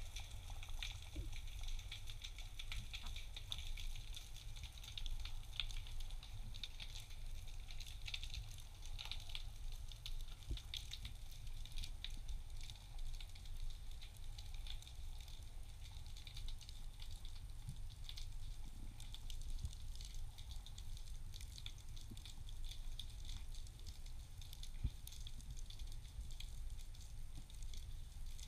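Underwater ambience along a rocky reef: a dense, steady crackle of tiny clicks over a low rumble, heard through an action camera's waterproof housing.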